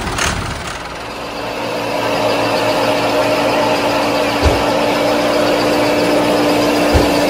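Miniature model tractor and its hitched toy wheat thresher running, a steady mechanical hum with a constant whine, swelling over the first two seconds. Two short knocks come about halfway through and near the end.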